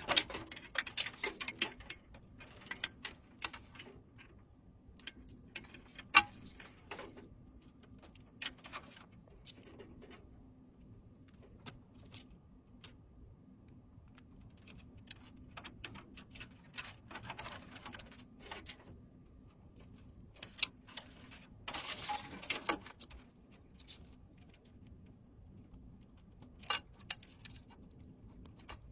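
Hands fitting PC components: irregular clicks, taps and light scrapes of small plastic and metal parts, with one sharp click about six seconds in and a denser run of clicking and scraping a little past two-thirds through, over a faint steady hum.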